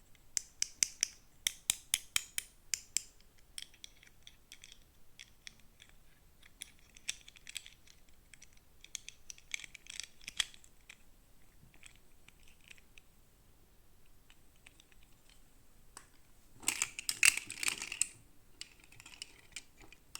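Toy packaging being opened and handled: a quick run of small sharp clicks and taps, then scattered clicks, and a short burst of crinkling plastic near the end.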